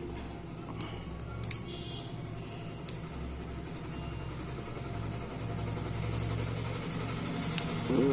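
Steady low hum of an idling engine or machine in the background, with a few light clicks in the first three seconds, the sharpest about one and a half seconds in.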